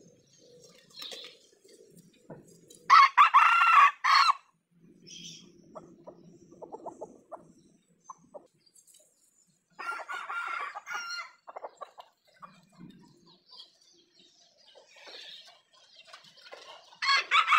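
Roosters crowing: a loud crow about three seconds in, another about ten seconds in, and a third starting near the end, each a little over a second long.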